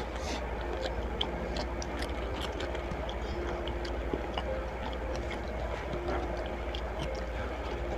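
Mukbang eating sounds: chewing and small mouth and utensil clicks scattered throughout, over a steady low hum.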